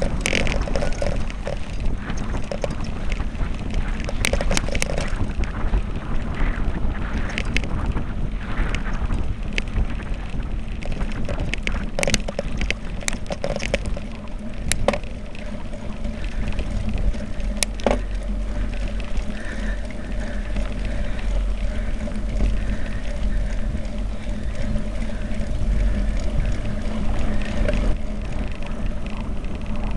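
Wind rushing over the microphone of a camera riding on a mountain bike down a dirt singletrack, with tyre and trail noise and the bike rattling over the rough ground. A few sharp knocks from bumps, mostly between about twelve and eighteen seconds in.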